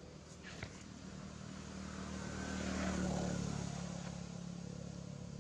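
A motorbike engine running nearby, a steady hum that grows to its loudest about three seconds in and then eases off. There is a single sharp click less than a second in.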